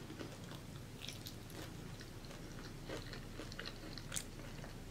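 A person chewing a mouthful of food with the mouth closed, making faint wet mouth clicks, with one sharper click about four seconds in.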